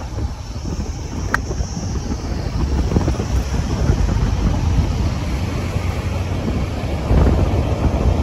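Wind buffeting the microphone: a dense low rumble that grows louder and steps up again about seven seconds in.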